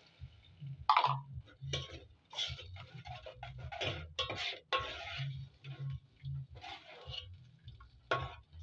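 A cooking utensil scraping and clinking against a pot in a run of short, irregular strokes, like a curry sauce being stirred.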